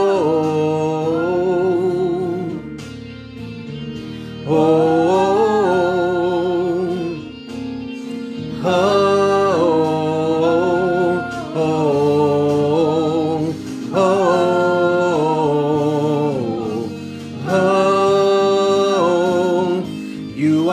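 A man and a young woman singing a slow gospel worship song in long, wavering phrases over steady instrumental accompaniment.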